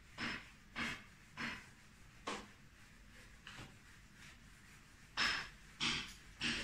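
Blue whiteboard eraser wiped over a whiteboard in back-and-forth strokes, each a short scrubbing swish. Four strokes, a pause of about two seconds, then louder strokes near the end.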